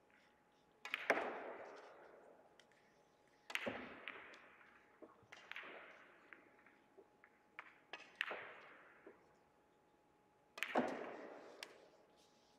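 Hard clacks of Russian pyramid billiard balls: the cue striking the cue ball, then balls colliding and knocking against the cushions. There is a loud knock about a second in, another a few seconds later, smaller clicks between, and a loud pair near the end, each ringing on in a large hall.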